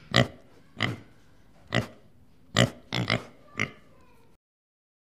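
Deer calling: about seven short, sharp calls in quick succession, two of them close together near three seconds in, stopping abruptly a little over four seconds in.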